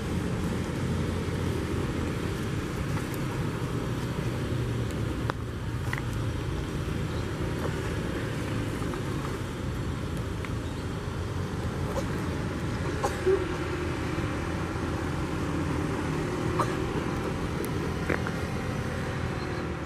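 Steady low rumble of outdoor vehicle noise, with a few faint clicks and knocks.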